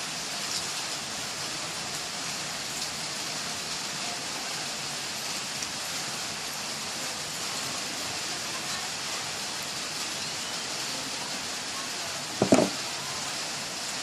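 Steady background hiss, with one short knock near the end.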